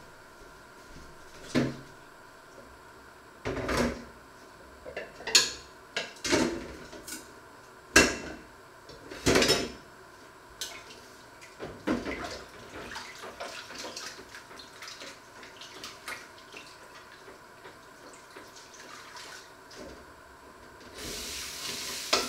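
Dishes, pots and pans clattering as they are handled at a kitchen sink: a series of sharp knocks and clinks a second or two apart, then lighter clinks. Near the end a tap runs briefly.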